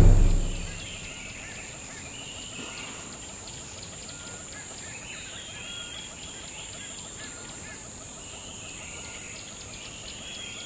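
Nature ambience sound effect: a steady hiss with a constant high drone and scattered faint bird chirps, after the low tail of a drum hit fades in the first half second.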